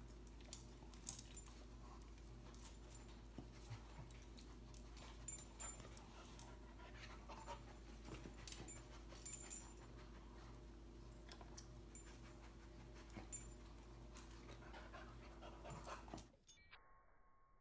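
A dog panting, with scattered small clicks and ticks over a steady low hum; the sound drops away sharply near the end.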